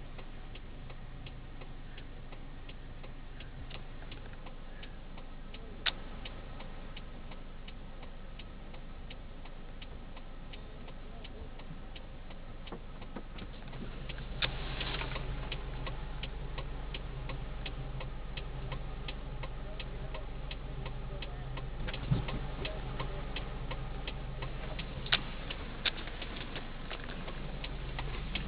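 Steady rapid ticking of a car's indicator relay heard inside the cabin, about two ticks a second, over the low hum of the idling engine, which grows louder about halfway through. A few sharper knocks stand out.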